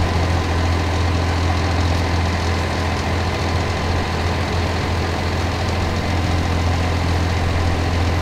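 Emergency vehicle's engine idling, a steady deep hum that holds unchanged.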